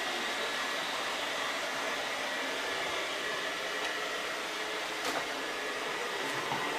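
Vacuum cleaner running steadily, an even rushing noise with a faint high whine, and one short click about five seconds in.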